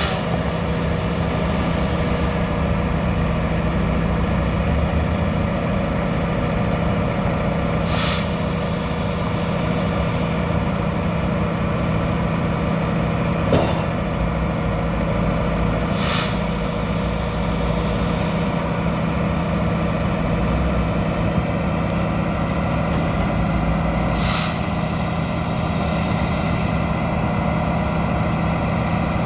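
Diesel engine of a Freightliner M2 concrete pump truck running steadily, with a short sharp hiss of air about every eight seconds.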